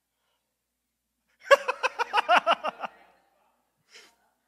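A man laughing close to a handheld microphone: one burst of rapid ha-ha pulses, about ten of them in a second and a half, beginning about a second and a half in, with a faint breathy chuckle near the end.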